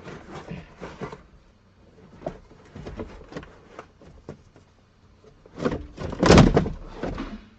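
Small plastic clicks and knocks of a Tesla Model S dashboard being worked apart as the instrument cluster is freed, then a louder scraping clunk lasting about a second, about six seconds in, as it comes loose.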